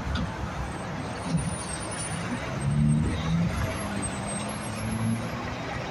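Mack R-model dump truck's diesel engine pulling past at low speed over steady road and traffic noise, its engine note climbing partway through as it accelerates.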